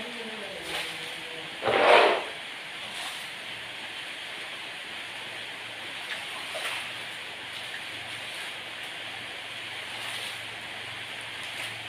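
Muddy floodwater on a house floor splashing: one loud splash about two seconds in as a scoop of water is dumped, then softer sloshing as the water is waded through and pushed with a plastic dustpan, over a steady hiss.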